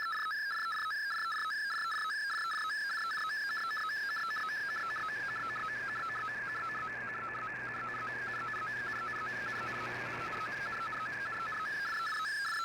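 Shortwave digital broadcast signal heard through the receiver: a slow-scan television (SSTV) picture transmission, with a steady run of audio tones that dip to a lower sync tone at a regular, quick rhythm. Noise and a low hum rise and fall behind it partway through as the signal fades.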